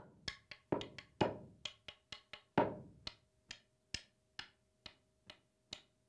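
Wooden stav and tein tapping the Scandinavian pulse rhythm: a steady train of sharp wooden knocks, about two a second, some strokes louder and fuller than others.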